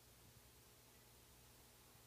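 Near silence: room tone, a faint steady low hum under an even hiss.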